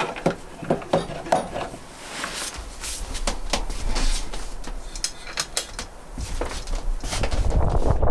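A series of irregular clicks and knocks, like hard objects being handled, with a low rumble rising near the end.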